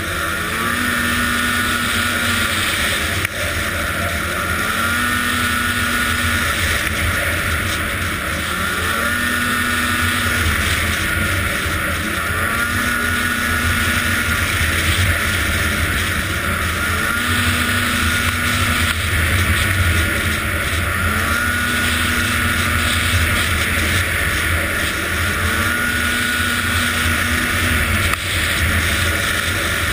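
Arctic Cat ZR 800 snowmobile's two-stroke twin engine running, its pitch rising and falling in a regular cycle about every three seconds. It has a running problem that the owner suspects may come from bad fuel injectors.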